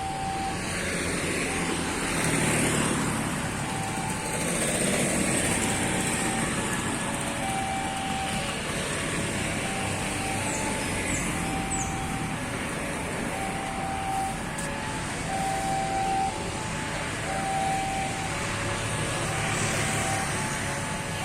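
City street traffic: a steady roar of passing cars and motorbikes, swelling as vehicles go by a few times. A short electronic beep repeats about once a second throughout.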